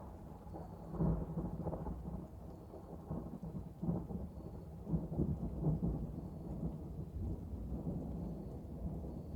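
Thunder rumbling, rolling and swelling in repeated low surges.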